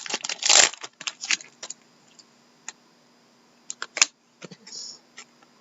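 Trading cards being handled and flipped through: a quick run of clicks and rustles in the first second and a half, then a few scattered clicks about four seconds in.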